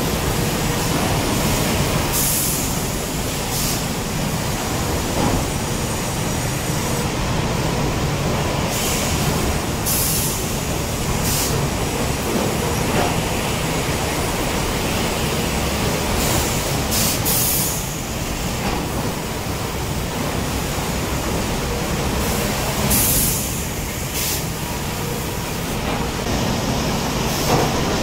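Sawmill machinery running steadily as roller conveyors carry sawn timber and cants, with short high hisses several times.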